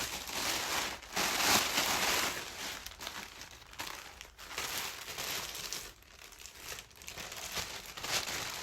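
Packaging crinkling and rustling as clothes are unwrapped and handled, in irregular bursts, loudest between about one and two and a half seconds in.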